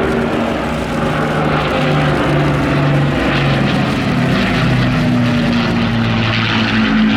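Propeller engines of a Second World War warbird flying past, a loud steady drone whose pitch wavers slightly.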